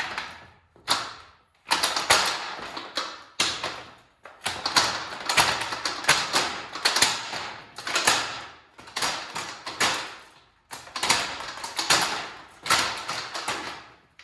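Aluminium multi-position ladder clanking and rattling in a series of about a dozen sudden bursts, each dying away, as it is loaded to test a freshly welded leg.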